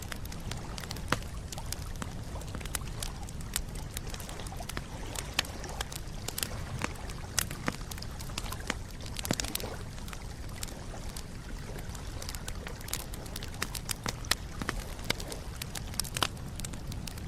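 Wood campfire crackling, with many irregular sharp pops and snaps over a steady low rumble of burning.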